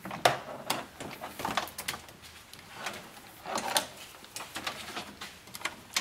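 Light clicking and rustling of hands handling wire leads and plastic connectors of an HID wiring harness, in scattered short bursts that are busiest a little past the middle.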